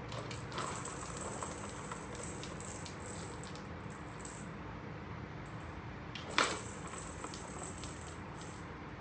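Plastic balls rattling round a cat's circular track toy as a cat bats at it. The rattling comes in two spells, and a sharp knock about six seconds in is the loudest sound.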